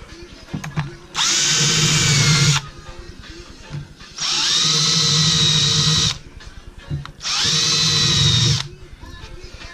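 Electric drill running in three bursts of one to two seconds each, boring holes through a cardboard template into a wooden bench. At each start the motor whine rises and then holds a steady pitch.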